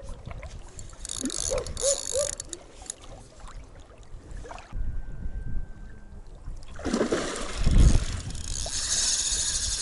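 Spinning reel clicking and whirring as a hooked fish is played, with water and wind noise that grows louder near the end.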